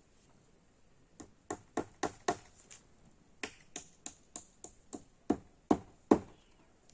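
A quick run of sharp taps or knocks, about three a second, starting about a second in, with the loudest strikes near the end.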